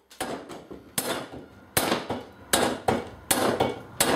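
Hammer blows on a race bearing driver, knocking a sealed ball bearing into the hub of a Yamaha FZR600 rear wheel. A few light taps, then five heavy metallic strikes about three-quarters of a second apart.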